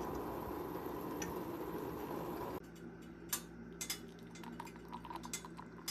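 A steady hiss that cuts off abruptly about two and a half seconds in, followed by scattered light clinks and ticks of cutlery against dishware.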